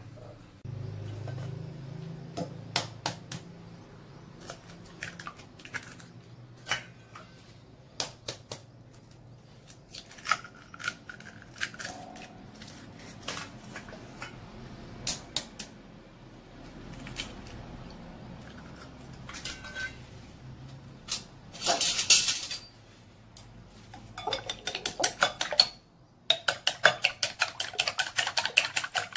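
Scattered clinks and taps of kitchen utensils and dishes, with a louder noisy burst lasting about a second well past the middle. Then eggs are beaten in a glass bowl, the utensil clicking against the glass in a fast, even rhythm of about five strokes a second.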